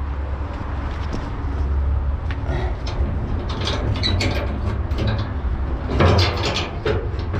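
Metal scrap in a dumpster clattering and scraping as it is pulled loose, with a louder clatter about six seconds in, over a steady low rumble.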